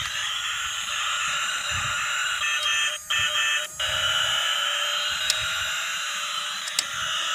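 Battery-powered transforming toy police car playing its electronic sound effects through its small built-in speaker: a continuous tinny electronic tone pattern, switched on just before, that breaks off briefly twice about three seconds in. A couple of sharp clicks come in the second half.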